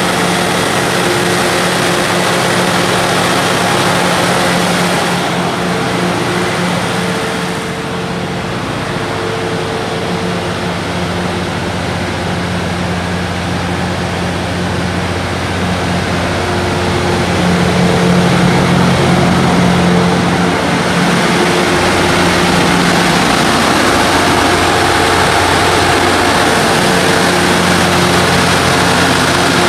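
Cummins QSK23 inline-six diesel engine of a 750 kW standby generator set running steadily at its governed 1800 rpm with no load, a constant low drone.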